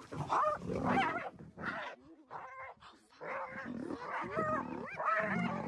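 An animal calling: a run of short cries that rise and fall in pitch, with a brief lull partway through.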